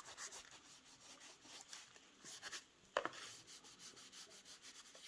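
Damp cloth rubbing and scrubbing over a painted wooden board in faint, repeated strokes, with one sharp tap about three seconds in.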